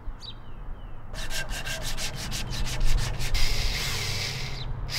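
Power drill worked against a rusty steel shovel head, scraping and abrading the metal. A rhythmic rasp of about six strokes a second gives way to a steady scouring hiss over a motor hum, which stops briefly near the end.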